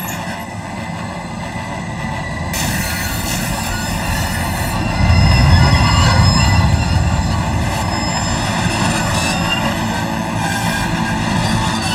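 Cartoon steam locomotive braking hard to an emergency stop: its steel wheels squeal on the rails over a low rumble that swells about five seconds in.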